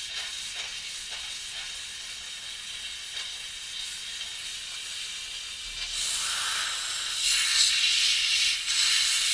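Handheld steam cleaner jetting steam onto a gearbox casing: a steady hiss that grows louder about six seconds in, as the nozzle comes close.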